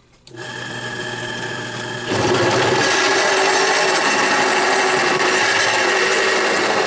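A drill press starts up and runs with a steady hum; about two seconds in, its four-flute countersink bit bites into a steel plate and a louder, rough metal-cutting noise takes over and holds.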